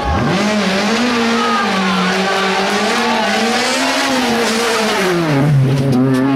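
Honda Civic rally car's four-cylinder engine held at high revs as it approaches and passes close by. Its note drops sharply about five seconds in as it goes past.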